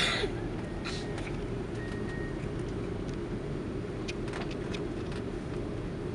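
Steady low cabin rumble of an Airbus A330-200 taxiing after landing, its Rolls-Royce Trent 700 engines at idle, with a few faint ticks and rattles. A brief, loud, sliding high sound comes right at the start.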